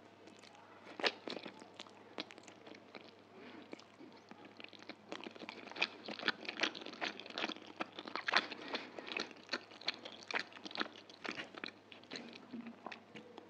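Close-miked mouth sounds of a person eating chicken chow mein noodles: wet chewing with many quick clicks and some crunching of the vegetables. It grows busier and louder through the middle.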